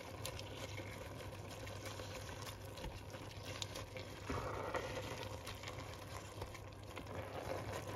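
Spinach and minced beef simmering in a pot, a steady quiet bubbling and hiss with scattered faint clicks as a wooden spatula stirs the greens; the dish is nearly cooked.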